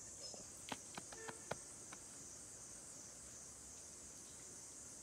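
Steady high-pitched drone of insects, with a few faint clicks and knocks in the first two seconds.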